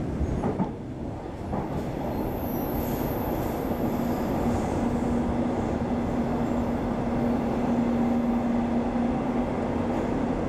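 Queensland Rail electric train running, heard from inside the passenger carriage: a continuous rumble of wheels on track. A high thin tone sounds for a couple of seconds about two seconds in, and a steady low hum joins about three seconds in and holds.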